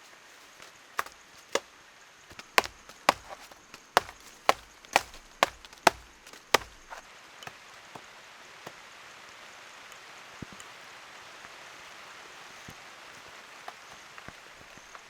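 Chopping: about a dozen sharp strikes, roughly two a second, that stop about halfway through, followed by a faint steady hiss.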